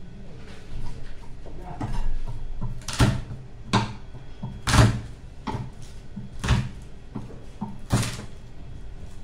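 Kitchen knocking and clattering: half a dozen sharp knocks roughly a second apart, the loudest near the middle, with softer bumps before them.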